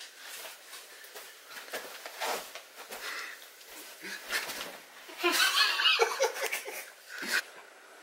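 People laughing and giggling, quietly at first and much louder from about five seconds in.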